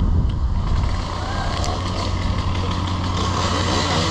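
An engine running steadily at an even, low pitch.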